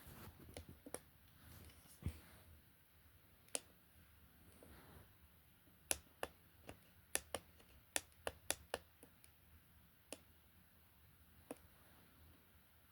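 Buttons of an Advance 3373 plug-in alarm clock pressed again and again while setting the alarm: scattered sharp plastic clicks, with a quick run of about eight presses in the middle.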